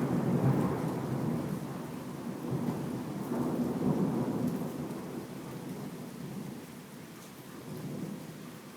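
Rolling thunder rumbling deeply and slowly dying away, swelling again about three and a half seconds in and more faintly near the end, with rain falling.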